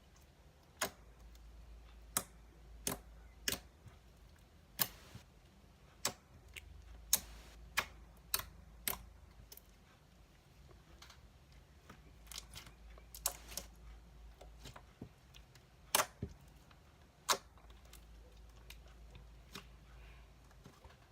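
Homemade slime being played with by hand, making sharp, irregular clicks and pops, about one a second and sometimes in quick clusters.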